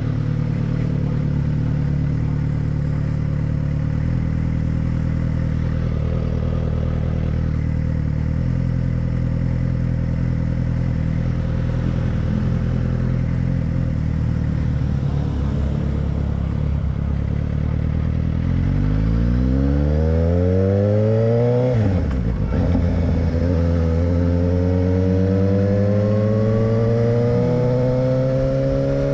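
Motorcycle engine idling steadily, then pulling away: the engine note climbs quickly, drops sharply at a gear change, and climbs again more slowly in the next gear.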